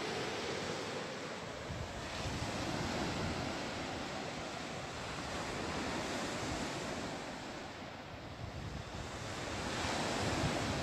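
Calm sea waves washing onto the shore, the surf swelling and fading every three to four seconds, with some wind on the microphone.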